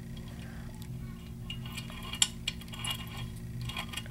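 Scattered small metallic clicks and clinks as a foil-wrapped KW1 key blank turns the plug of a Kwikset-type pin-tumbler lock cylinder. The lock is already open by foil impressioning, and the tool is turning it like a regular key.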